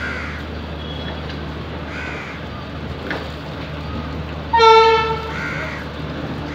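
Electric locomotive's horn gives one short, loud toot about four and a half seconds in, over a steady low rumble from the approaching train. Crows caw a few times in between.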